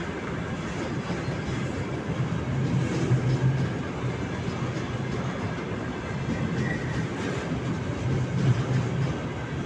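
Freight train of tank cars rolling past close by: a steady rumble and clatter of steel wheels on the rails. It grows louder about three seconds in and again near the end.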